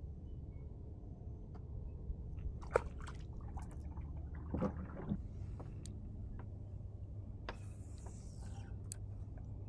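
Kayak paddling: the paddle blade dipping, with water dripping and sloshing against the hull, quiet over a steady low rumble. A few brief sharp sounds come about three and five seconds in, and a short hiss of water comes near the end.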